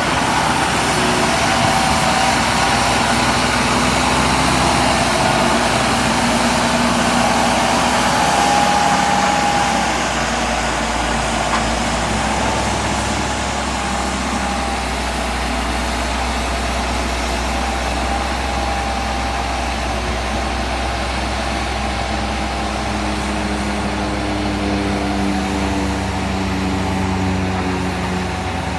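Heavy diesel engines of road-construction machinery running steadily, with a wavering engine tone. The sound gets a little quieter about ten seconds in.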